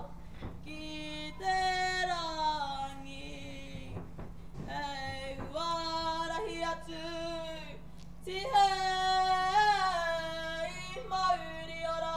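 A girl singing solo, leading a Māori action song in long held notes that slide between pitches, phrase by phrase. The phrases grow louder about two-thirds of the way in.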